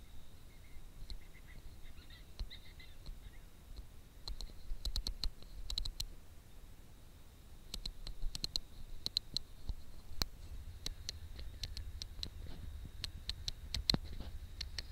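Irregular clusters of sharp clicks and light scratches over a faint, steady high-pitched whine.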